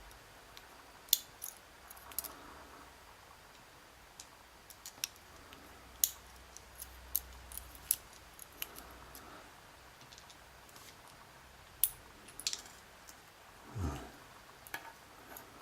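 Small metal lock pins and tweezers clicking and tapping against a pinning tray, in scattered irregular clicks, with a duller thump near the end.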